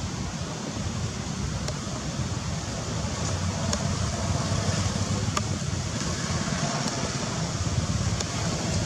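Steady outdoor background noise: a continuous low rumble with a hiss over it, and a few faint clicks scattered through.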